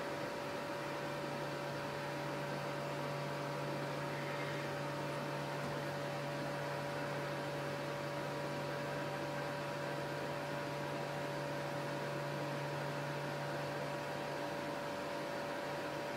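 Steady electrical hum with a couple of faint, even higher tones over a light hiss, unchanging throughout; no distinct handling sounds stand out.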